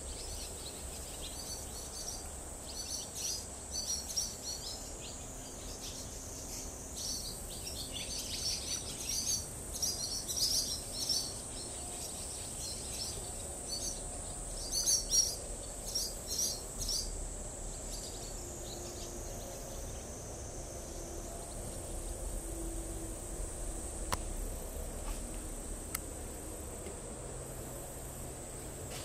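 Swallows twittering in quick clusters of high chirps through the first half or so, over a steady thin high-pitched whine.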